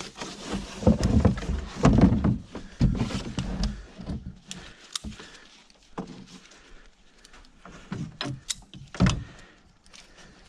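Irregular knocks, clunks and rattles as a tote box and a strap are handled and fitted onto the back of a tractor. The heavier thumps come in the first few seconds, followed by lighter scattered clicks and taps.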